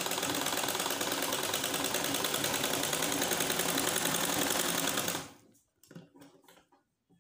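Sewing machine stitching a seam at a fast, even rate, then stopping abruptly about five seconds in, followed by a few faint clicks and rustles of the fabric being handled.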